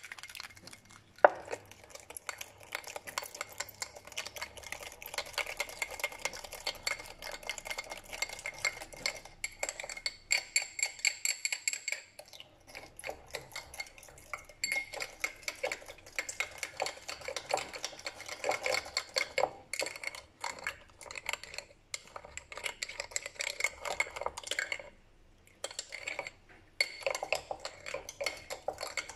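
Metal teaspoon stirring sugar and yeast into warm water in a small glass bowl, clinking quickly and steadily against the glass, with one sharper clink about a second in. The sugar is being stirred until it dissolves, the first step in checking that the yeast is active.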